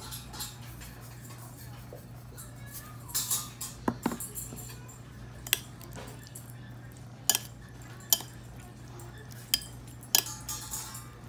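Metal spoon clinking against a ceramic bowl while stirring and scooping a chunky bean and potato stew: a series of sharp clinks at irregular intervals.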